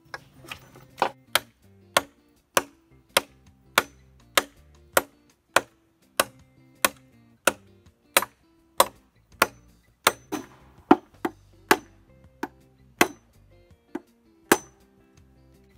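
Machete chopping into a green bamboo tube, cutting an opening in its side: sharp, evenly spaced strikes about every half second, a few coming quicker near the end. Background music plays underneath.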